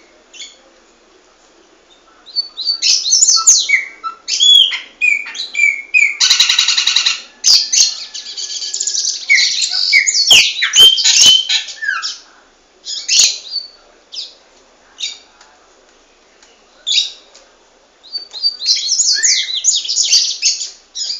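Pet songbirds singing in bursts of rapid high chirps and trills, with a buzzy rasping phrase about six seconds in and another run of song near the end. A few sharp clicks come around ten to eleven seconds in.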